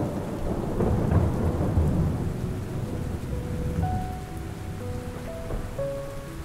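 Rolling thunder over steady rain, loudest in the first two seconds, then dying away. A few soft, held musical notes sound over it.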